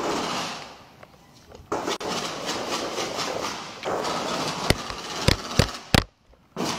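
Gunshots picked up by a police body-worn camera: one loud shot right at the start, scattered fainter cracks under the noise of the camera moving, then four sharp shots in quick succession about two-thirds of the way through, and another near the end.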